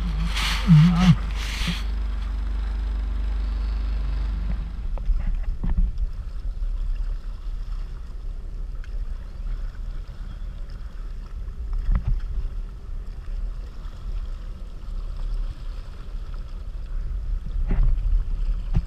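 Sea-Doo Spark jet ski running on the water: a steady low rumble for the first few seconds, then an uneven, fluctuating low churn with small splashes and wind on the microphone.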